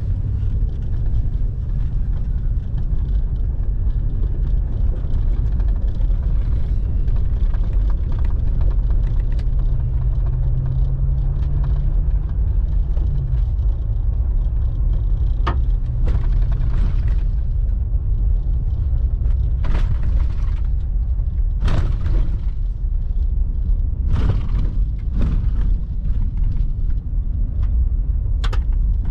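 Pickup truck driving on a rough dirt trail, heard from inside the cab: a steady low rumble of engine and tyres, with the engine note rising briefly partway through. Several sharp knocks and rattles are scattered through the second half.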